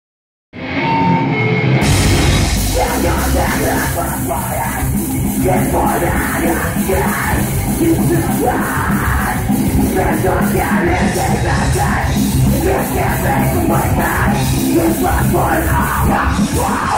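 A live heavy metal band plays distorted electric guitars, bass and drum kit, with harsh shouted vocals. The music starts half a second in and fills out to the full band about two seconds in.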